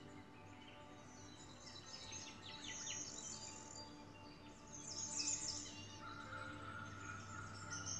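Soft background music of held notes with bird chirps over it. The chirps come in quick clusters about two seconds in and again, loudest, about five seconds in.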